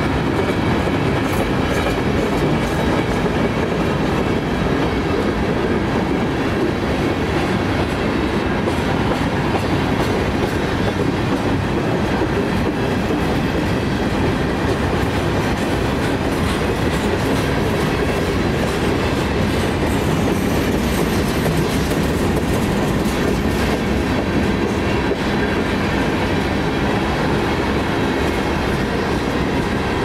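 Freight train cars rolling past, steel wheels clattering steadily over the rails.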